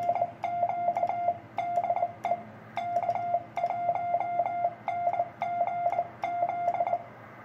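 Morse code sidetone from a QRP CW transceiver: a steady mid-pitched beep keyed into short and long elements (dots and dashes) by a dual-lever paddle, sending a run of characters that stops near the end.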